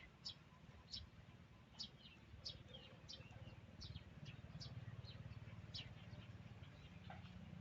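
Faint, short, high-pitched chirps repeating about twice a second over a low steady hum.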